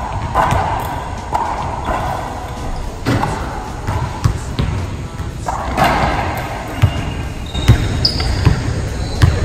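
Racquetball rally: the hollow rubber ball smacking off racquets, walls and floor every second or so, echoing around the enclosed court.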